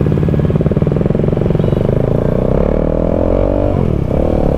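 Motorcycle engine running under way, pulsing at low revs at first and then climbing smoothly in pitch, with a brief sharp dip in revs about four seconds in before it picks up again.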